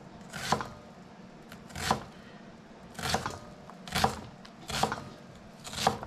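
Chef's knife finely dicing an onion on a plastic cutting board: about six separate cuts, unevenly spaced about a second apart.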